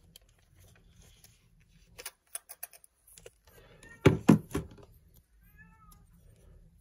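Handling noise from small lens-adapter parts: a few light clicks about two seconds in, then a louder cluster of knocks and taps about four seconds in as an adapter plate is picked up. A faint, short wavering tone follows near the end.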